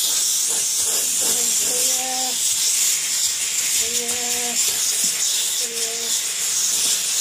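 Kärcher SC4 steam cleaner's hand nozzle jetting steam against a skirting board and tiled floor: a steady high hiss.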